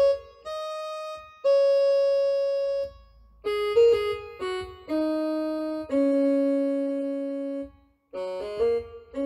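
Background music: a slow keyboard piece of long held notes and chords, each sustained for a second or two.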